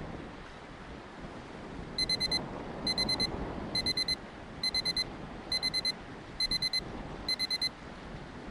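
Electronic timer alarm beeping, like a household appliance: seven bursts of four quick high beeps, about one burst a second, signalling that seven minutes have elapsed.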